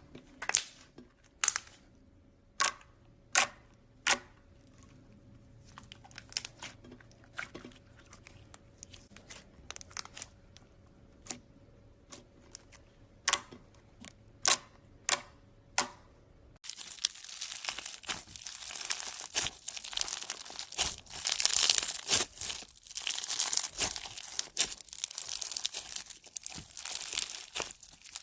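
Scattered sharp snaps and clicks over a faint steady hum. About sixteen seconds in, this changes abruptly to dense, continuous crackling and crinkling, the sound of a crunchy material being handled up close.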